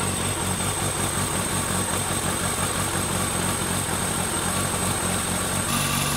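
Yamaha FZR600's four-cylinder engine idling steadily while its four carburetors are being synchronised, with a thin, steady high-pitched whine over it.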